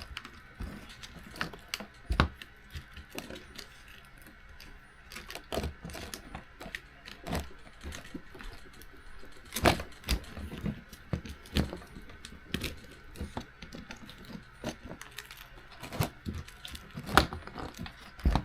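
Irregular clicks, taps and knocks as parts of an Arrma Typhon Grom RC buggy are handled and tugged at, trying to pull a part out of the chassis by hand; the sharpest knocks come about ten seconds in and near the end.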